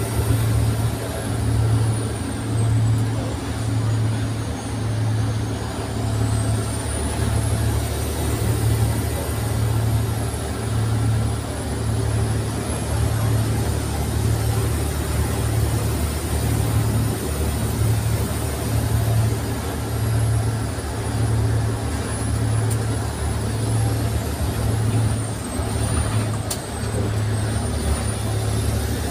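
Wright Eclipse SchoolRun bus driving along, heard from its back seats. Its engine gives a steady low drone that swells and fades about once a second, with a thin high whine that slowly rises and falls in pitch.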